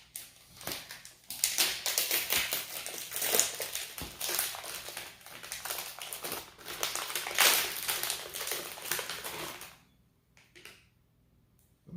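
Foil snack wrapper from a box of Pocky crinkling and rustling as it is handled, a dense crackle that stops about ten seconds in.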